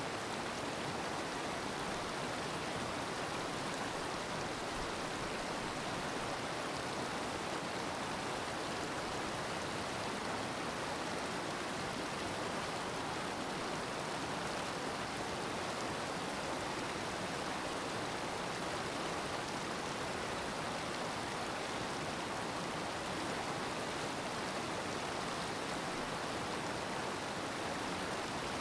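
Water released through one open spillway gate of the Cheruthoni Dam, rushing down the concrete spillway as a steady, unbroken noise.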